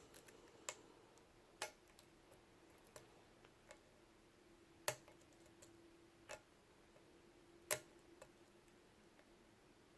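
Faint, irregular metallic clicks of a lock pick working the pin stacks of a Lockwood 356S63 padlock under tension, with two louder clicks about five and eight seconds in.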